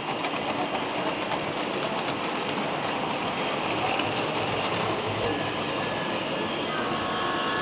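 Steady, even crackling hiss of background noise in a model railway exhibition hall, with no clear voice in it. A few faint steady tones come in near the end.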